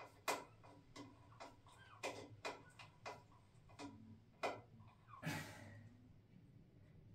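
Plastic toilet seat being pressed and rocked on the ceramic bowl to test a new rubber stop: a string of light, irregular clicks and knocks, the loudest and longest about five seconds in.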